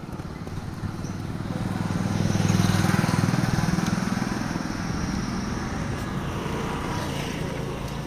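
A small motor vehicle's engine running past, growing louder about two to three seconds in and then fading.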